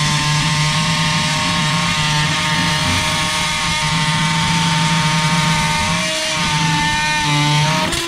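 Rockwell Sonicrafter oscillating multi-tool running with a steady whine as its metal blade cuts into rusted steel. The pitch wavers briefly about six seconds in and again near the end as the load on the blade changes.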